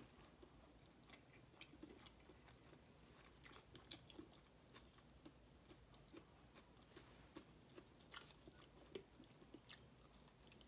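A person chewing food faintly close to the microphone, with scattered small wet mouth clicks.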